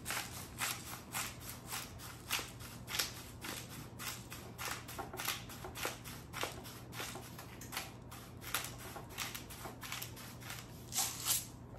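Hand-twisted black pepper grinder grinding peppercorns: a steady run of short grinding strokes, about two a second.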